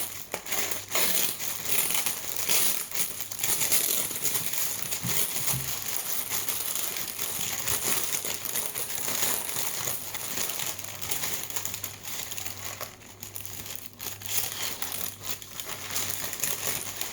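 Paper sandwich wrapper crinkling and rustling as a Subway sub is unwrapped, a dense continuous crackle of handled paper.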